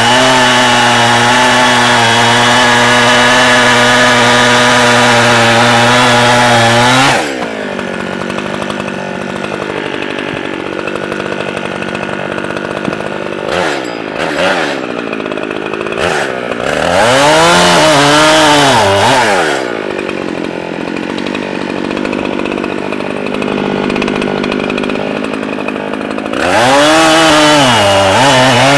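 A new, not yet broken-in Echo CS-7310P chainsaw running at full throttle as it cuts wood, its pitch wavering under load, then dropping to idle about seven seconds in. It idles with one short rev up and back down around the middle, then is throttled up to full speed again near the end.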